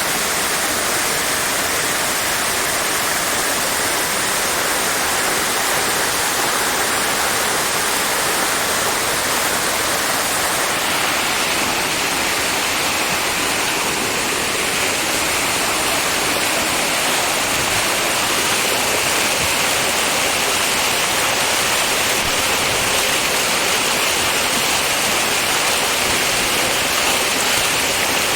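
Waterfall: a steady, loud rush of falling water. Its hiss changes tone slightly about eleven seconds in.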